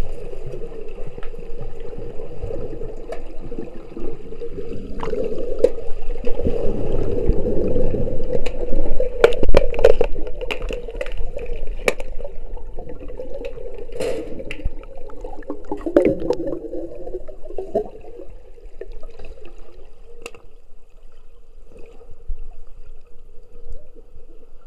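Underwater sound through an action camera's waterproof housing in a pool during underwater hockey: muffled churning water from kicking fins, under a steady hum. Sharp clicks and knocks, most of them from about a third of the way in to two-thirds through, are the sticks and puck striking the tiled pool floor.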